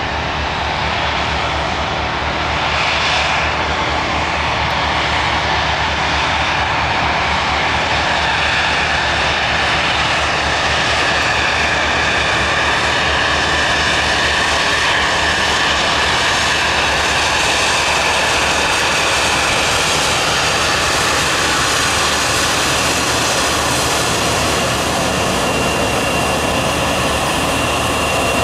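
Twin rear-mounted GE CF34 turbofans of a Bombardier CRJ700 regional jet running as it lines up and starts its takeoff roll: a steady jet roar that grows a little a few seconds in, with a high fan whine coming in near the end.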